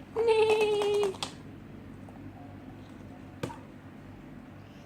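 A child's drawn-out "neee" imitating a zebra's whinny for about the first second, with a few quick taps. Then one sharp click about three and a half seconds in.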